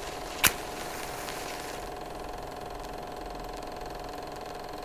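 Steady mechanical whirring hum with a held tone, broken by one sharp click about half a second in.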